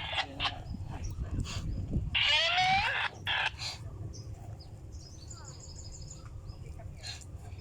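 Birds calling outdoors: one loud, harsh call with its pitch curving up, about two seconds in, then a short run of high, quick chirps about five seconds in.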